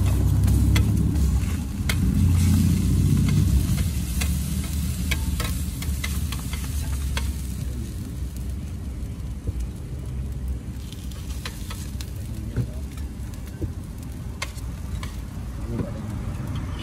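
Burgers frying on a flat steel griddle with a steady sizzle. Metal spatulas scrape and click against the hot plate many times. A low rumble is loudest in the first few seconds.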